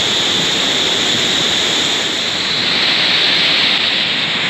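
Waterfall on a jungle river: falling water rushing loudly and steadily.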